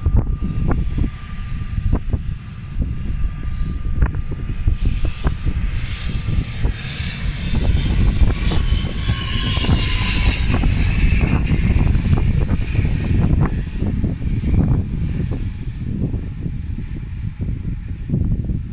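Airliner passing close by, its engine noise swelling to a peak about halfway through and then fading, with a high whine over a low rumble and a tone that slides down in pitch as it goes past.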